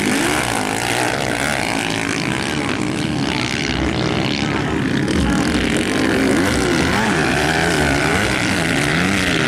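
Motocross dirt-bike engines revving on the track, the pitch rising and falling continuously as riders open and close the throttle over the jumps and corners.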